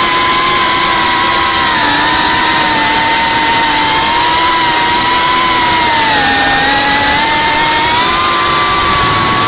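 FPV quadcopter's brushless motors whining steadily in flight, the pitch dipping about two seconds in and again around six seconds, then rising near the end as the throttle changes.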